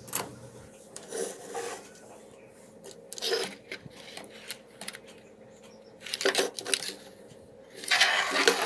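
Screwdriver driving a screw to fasten an audio board's ground to a TV chassis: scattered metallic clicks and rattles, with a longer scraping rustle near the end.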